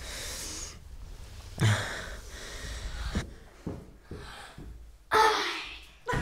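A man taking long, heavy, gasping breaths, shaken after waking from a nightmare. There are a few soft taps or knocks between the second and third breaths.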